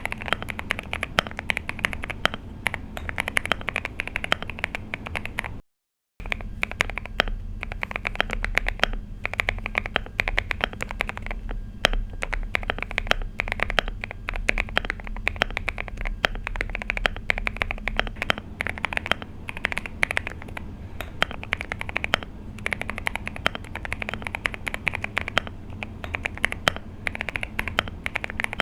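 Fast continuous typing on a Finalkey V65 mechanical keyboard with a polycarbonate plate, foam-dampened case and lubed switches: a dense run of key clacks. A brief silent cut comes about six seconds in.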